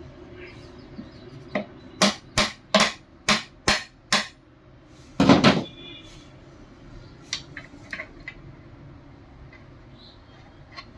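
Hammer striking metal parts of a Wilden diaphragm pump during reassembly: a run of about seven sharp clanging blows, roughly two a second, then a heavier double knock, then a few light taps.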